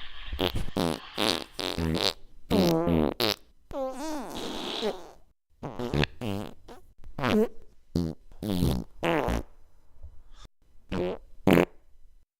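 A rapid string of about twenty farts, short pops mixed with longer buzzing ones whose pitch wobbles up and down. The longest comes about four seconds in, and there is a short gap near the end.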